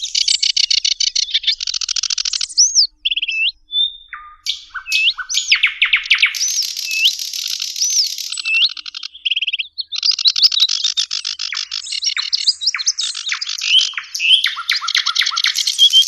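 Small songbirds singing: a dense, fast song of rapid trills, chirps and looping up-and-down whistled notes, broken by short pauses about three and ten seconds in.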